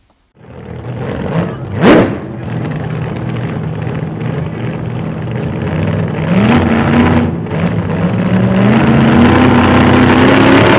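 A quick rising whoosh about two seconds in, then a vehicle engine running and accelerating, its pitch stepping up and climbing while it grows louder toward the end.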